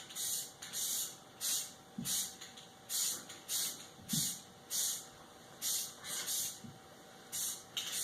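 Aerosol spray paint can sprayed in short bursts, about two hisses a second, as parts are given a coat of paint. A few faint knocks come between the bursts.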